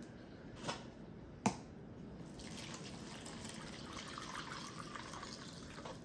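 Water mixed with filter-soak cleaner poured from a glass measuring cup into a plastic tub, splashing and frothing for about three and a half seconds. Before the pour come two knocks in the first second and a half, the second sharper and louder.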